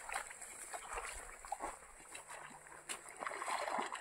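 A hooked tilapia splashing and thrashing at the surface as it is played in on a taut line through the shallows, with irregular small splashes. A steady high hiss runs underneath.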